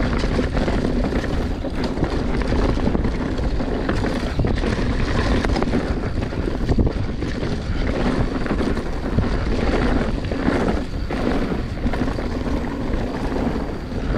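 Wind rushing over the microphone while a mountain bike rides a dirt trail, with a steady rumble and many short rattles and knocks from the bike over rough ground.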